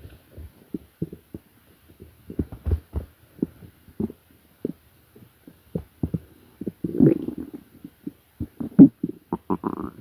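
A hungry stomach growling and gurgling: a run of short, irregular low gurgles, a longer rumble about seven seconds in, and a quick cluster of higher-pitched gurgles near the end.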